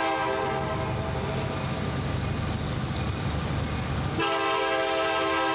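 CSX SD70AC diesel locomotive's multi-chime air horn cuts off at the start. The low rumble of the approaching train fills a gap of about four seconds, and then the horn sounds again, abruptly and steadily. These are horn blasts sounded for a grade crossing.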